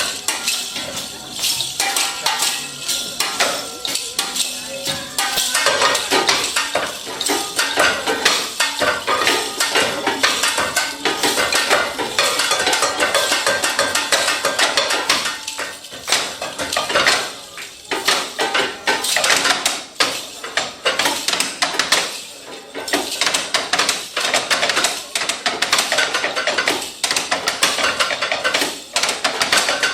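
Dense, rapid metallic clattering and tapping played as percussion in a musical performance, with steady tones underneath in the first few seconds.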